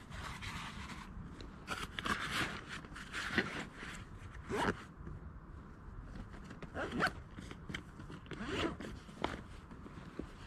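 A series of short rasping strokes at irregular intervals, with rustling between them, the loudest about four and a half and seven seconds in: handling noise of gear, zipper-like.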